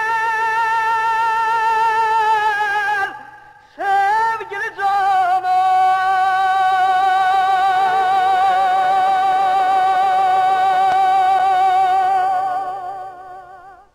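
Music: a singer holds long high notes with a wide vibrato. After a short break about three seconds in, a quick ornamented run leads into a lower note that is held for several seconds and fades out near the end.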